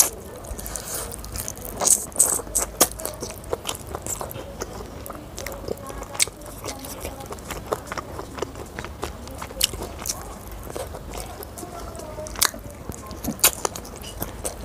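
Close-miked eating sounds of a person biting and chewing meat from a spicy chicken leg piece held in the hand, with many sharp mouth clicks scattered throughout.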